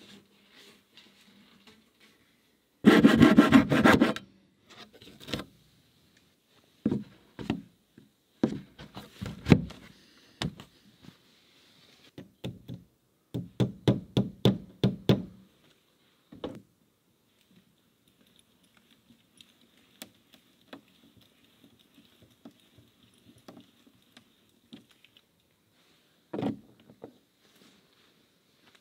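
Hand work on wooden boards: a loud burst lasting about a second near the start, scattered knocks and scrapes, then about two seconds of quick back-and-forth strokes, roughly five a second, a little before the middle.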